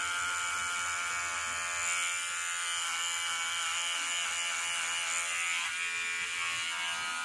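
Electric beard trimmer running with a steady buzz as it cuts down a full beard.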